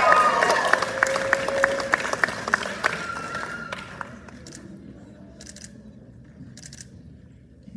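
Audience applauding and cheering, with a few held whoops, dying away over about four seconds. After that the room is quieter, with a few isolated sharp clicks.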